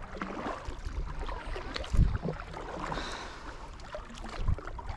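Water sloshing and small movements around a kayak, with a couple of dull knocks about two seconds in and near the end.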